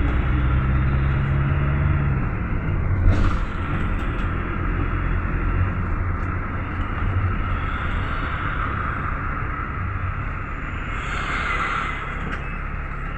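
Cabin noise inside a GAZelle Next minibus on the move: steady engine and road rumble. A low engine note fades out about two seconds in, a sharp knock comes about three seconds in, and a brief hiss comes near the end.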